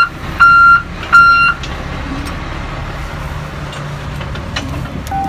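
Military truck's reversing alarm beeping, a little under a beep a second, stopping about a second and a half in. After that the truck's engine idles steadily. Near the end a single, lower-pitched tone begins.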